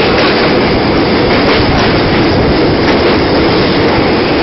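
Train running across a steel truss bridge, heard from on board: a loud, steady rumble of wheels on rails, with faint irregular clicks.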